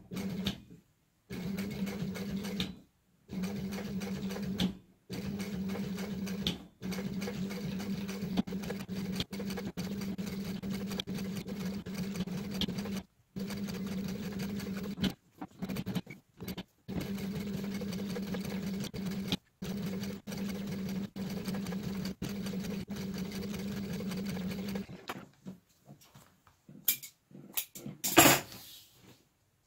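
Sewing machine stitching in repeated runs that stop and start, each run a steady hum that breaks off abruptly. Near the end the stitching stops and a few sharp knocks follow, one much louder than the rest.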